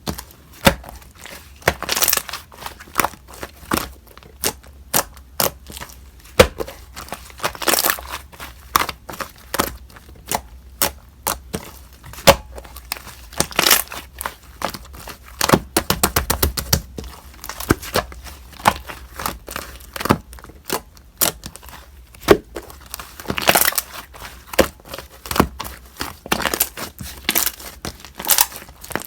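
Slime being worked by hand, making irregular sticky clicks, pops and crackles, with a quick run of small pops midway.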